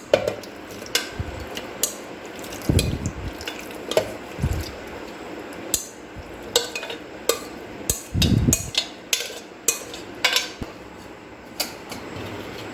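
Kitchen utensils clinking and scraping against a bowl and a mixer-grinder jar as cooked pumpkin pieces are spooned in, with irregular clicks and a few soft thuds.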